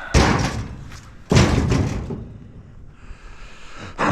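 Two loud crashes about a second apart as heavy scrap metal is dropped onto a trailer, each trailing off over about half a second.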